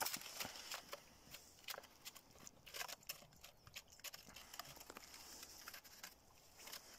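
Two cats eating meat from a clear plastic tub on snow: faint, irregular clicking and smacking of chewing. The tub knocks once as it is set down at the start.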